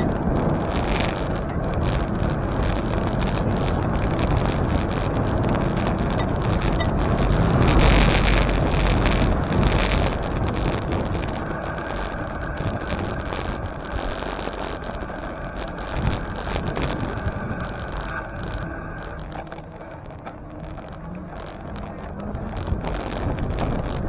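Wind rushing over the microphone and road noise from a bicycle ride, a steady rumbling hiss. It is strongest about eight seconds in and eases off briefly near the end.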